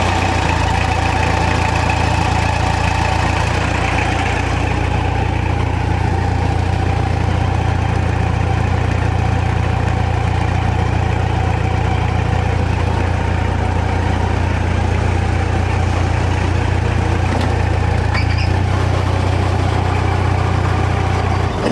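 Engine of a homemade telehandler running steadily at idle just after starting, then shut off suddenly near the end.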